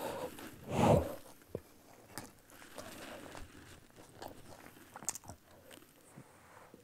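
Crunching bites and chewing of a korech sandwich, matzah folded around horseradish-style wasabi paste, charoset, herbs and a lettuce leaf. A louder crunch comes about a second in, followed by quieter chewing with small clicks.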